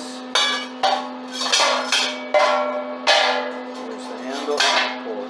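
Steel plug and fill opening of a homemade compressor-tank sandblaster clanking and scraping as the plug is lifted out and set back: a run of sharp metal knocks with ringing, about seven in all, over a steady low hum.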